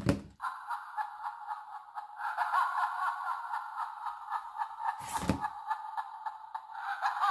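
Recorded sinister laugh played through the small built-in speaker of a LEGO Mindstorms EV3 brick, tinny and pulsing. There is a thump at the start as the motor-driven scarecrow arm swings up, and another thump about five seconds in.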